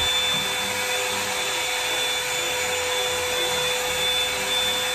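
Hot Tools One Step Blowout Volumizer hot-air brush running: a steady rush of blown air with a constant motor hum and a thin high whine.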